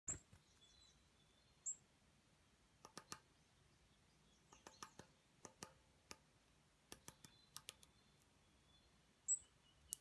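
Varied tit hammering a sunflower seed with its bill on a metal railing: sharp taps in quick clusters of two to four. Three brief, very high bird chirps come through, the loudest near the end.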